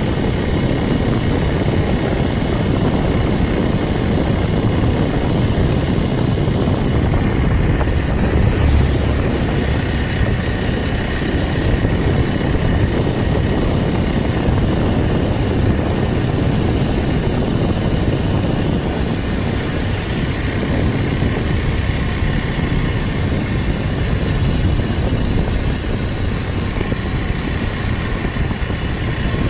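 Motorbike running at road speed, heard from the passenger seat, with steady wind rushing over the microphone.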